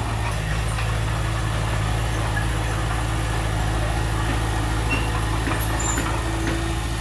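Diesel engine of heavy earthmoving equipment running steadily, with no rise or fall in revs.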